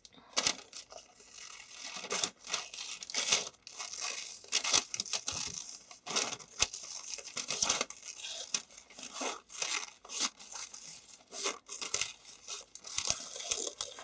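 Scissors cutting a spiral out of thin pattern paper: a run of irregular snips, about one or two a second, with the paper rustling and crinkling as it is turned.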